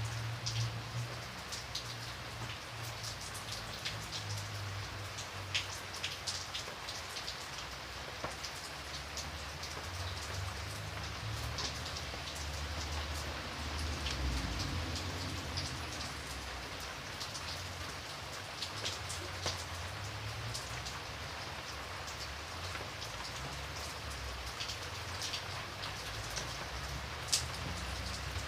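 Steady rain falling on a surface, a continuous hiss with individual drops ticking sharply here and there, over a low, shifting rumble.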